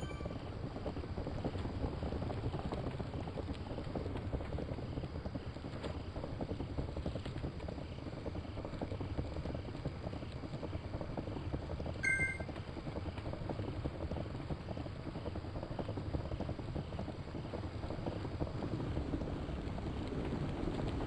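Steady rushing wind noise on the microphone, with a short two-tone electronic beep about twelve seconds in.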